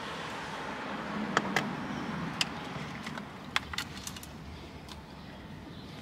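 Sharp clicks and light knocks with a steady rustle as the stock steering wheel is worked loose and pulled off the steering column.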